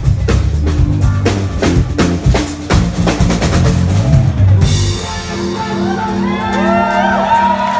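Live rock band with a drum kit playing a busy beat with cymbals; the drums stop abruptly about four and a half seconds in, leaving a held chord ringing with gliding high notes over it.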